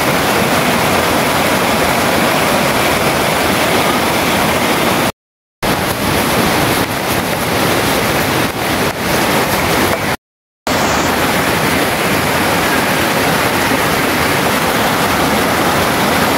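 Shallow rocky stream rushing and splashing over stones, a loud steady wash of water. It cuts out to silence twice, briefly, about five and ten seconds in.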